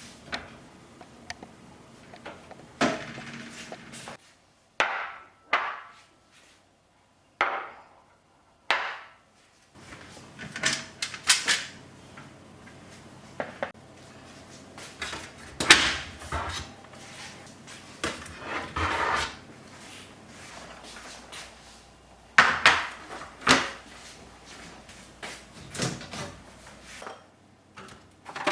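Kitchen handling noises: a series of separate knocks and clatters, as containers, jars and refrigerator drawers and shelves are taken out, moved and set down, with a few abrupt breaks in between.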